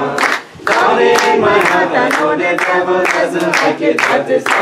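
A group of voices singing a devotional bhajan together, with hand-clapping keeping time at about two claps a second.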